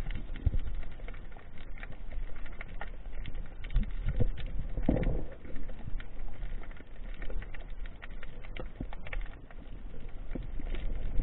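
Underwater sound picked up by a diver's camera: a constant crackle of small clicks over a low water rumble, with a louder rushing burst about five seconds in.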